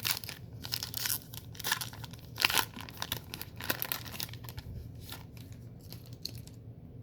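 A 2024 Topps Heritage card pack's wrapper being torn open and crinkled: a run of sharp rips and crackles that stops suddenly near the end.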